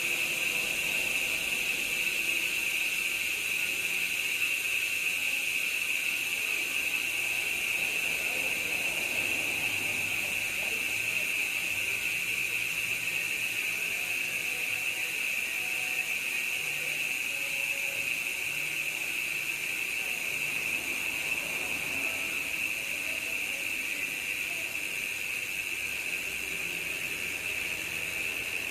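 Koozer XM490 Pro mountain-bike rear hub freewheeling, its pawls clicking so fast that they blend into one steady high-pitched buzz, which slowly fades.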